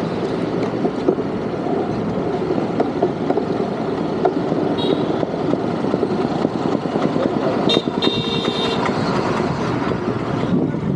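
Steady roar of town road traffic heard from a moving bicycle, with a vehicle horn tooting briefly about five seconds in and again for about a second near eight seconds.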